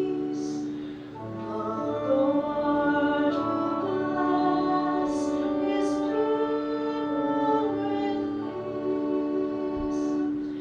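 Church singing of the responsorial psalm: a voice sings slow, long-held notes over a sustained accompaniment.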